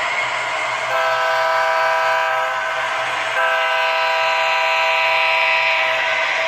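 Model diesel locomotive's DCC sound decoder sounding its horn twice, a shorter blast then a longer one, over its steady engine sound.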